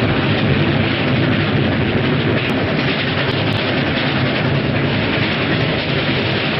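Pennsylvania Railroad K4s steam locomotive and its passenger train running at speed: a loud, steady rush of train noise.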